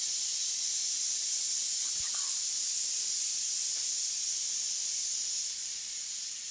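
A steady, even hiss, with a faint knock about two seconds in.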